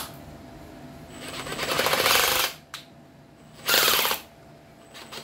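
Makita TS131 cordless oil-pulse impact driver run in short trigger pulls: a longer run that builds up from about a second in and lasts a second and a half, then a short burst, then another starting near the end. It has the softer, rapid pulsing of a hydraulic (oil) impulse mechanism rather than the hammering of a mechanical impact driver.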